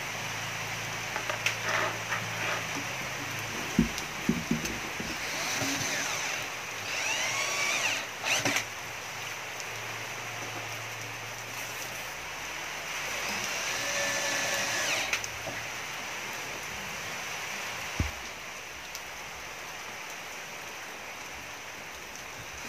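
Cordless drill-driver driving screws through plastic corner protectors into a speaker cabinet, in two short runs of a couple of seconds each, with a few sharp knocks of handling in between. A steady hiss sits underneath.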